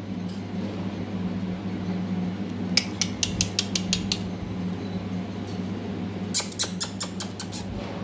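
Alexandrine parakeet's beak and claws clicking on the metal wires of its cage as it climbs, two quick runs of sharp clicks about three seconds in and again near the end, over a steady low hum.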